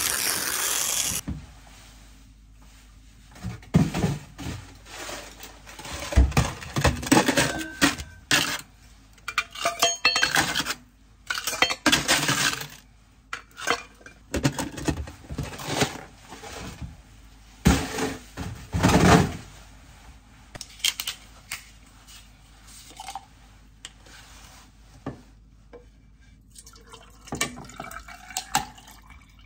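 Dishes and cutlery clinking and clattering irregularly, in repeated bursts of handling.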